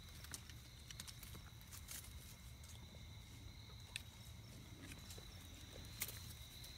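Faint outdoor quiet: a steady high insect drone, like crickets, with a few sharp clicks about two seconds apart over a low rumble.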